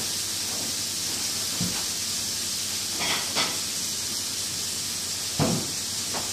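Burger patties sizzling in a frying pan on the stove, a steady hiss, with a few soft knocks of kitchenware about 1.5, 3 and 5.5 seconds in.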